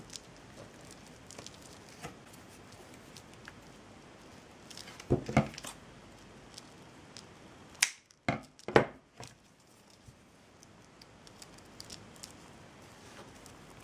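Handling noises of hand crafting work with small tools and materials: scattered light clicks and rustles, a louder cluster of short scraping sounds about five seconds in, and three sharp snaps or snips close together around the eight-second mark.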